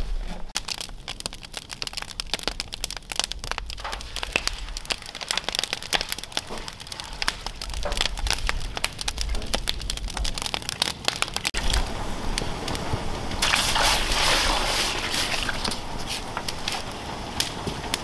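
Open wood fire crackling and popping under steel pans of boiling maple sap, a dense run of sharp snaps. About three quarters of the way through, a rushing hiss rises for a second or two.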